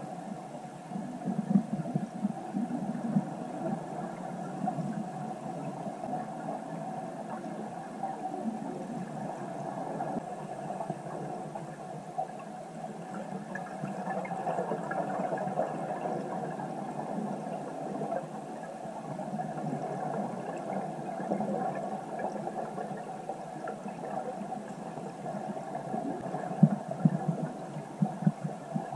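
Muffled underwater sound picked up by a camera in its waterproof housing: a steady low rumble and hiss of the water, with irregular louder bumps about a second or two in and again near the end.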